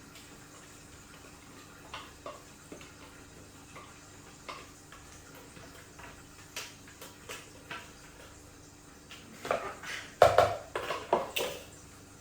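Cookware and utensils clinking and knocking in a kitchen: scattered light taps, then a louder run of clattering about ten seconds in.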